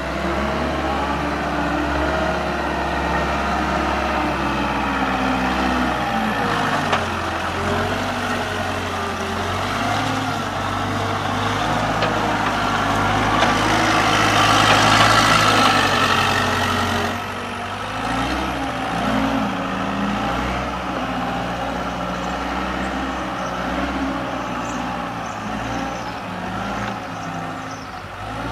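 John Deere 319D rubber-track skid steer running, its engine note shifting up and down in pitch. About halfway through it gets louder and noisier for a few seconds, then drops back suddenly.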